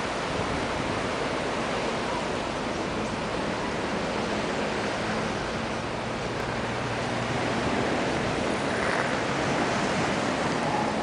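Ocean surf washing in against a rock breakwater and stony shore, a steady rushing that grows a little louder near the end.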